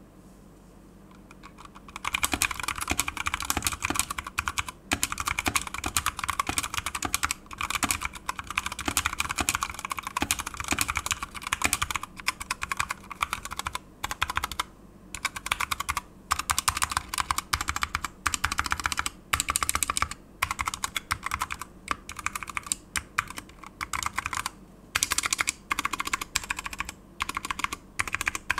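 Fast typing on an Apollo61 60% mechanical keyboard with Gateron switches and PBT keycaps: a dense clatter of keystrokes that starts about two seconds in, broken by brief pauses.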